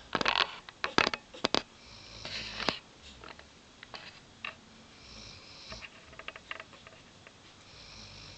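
Adult Weimaraner deeply asleep and snoring, a slow breath cycle of about one soft snore every three seconds. A cluster of sharp clicks and knocks comes in the first three seconds, with scattered small ticks after.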